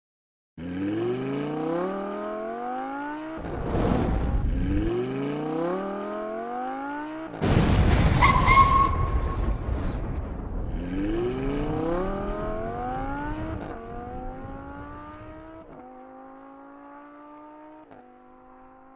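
Car engine revving up through the gears, each rise in pitch broken off by a shift. A loud rush of noise comes a few seconds in, and a louder one about halfway through carries a tyre squeal. The engine then climbs through higher gears and fades away.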